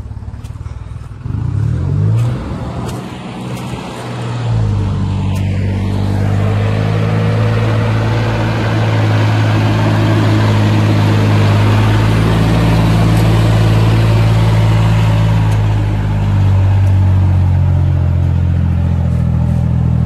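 Tractor engine working near the camera: it comes in about a second in with a brief rise in pitch, grows louder about four and a half seconds in, and then runs steadily at high revs.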